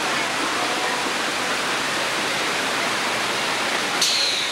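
Steady rush of water running down a log flume ride's trough. About four seconds in comes a sudden click, followed by a short high tone sliding down.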